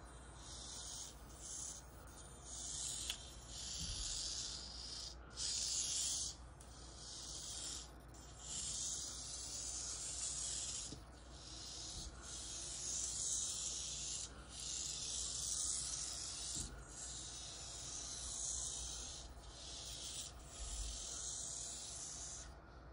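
Tiny micro RC car's electric motor and gears whirring with a high hiss. It comes in runs of a second or two that stop and start again as the car is driven.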